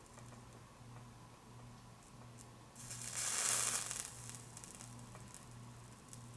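Soldering iron touching flux-coated solder and wire: a short hiss of sizzling flux about three seconds in, lasting a little over a second. A faint low hum sits underneath.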